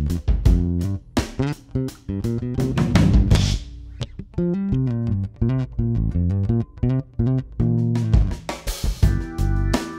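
Electric bass guitar improvising: quick runs of sharply attacked, percussive notes. Near the end a few higher notes ring on together.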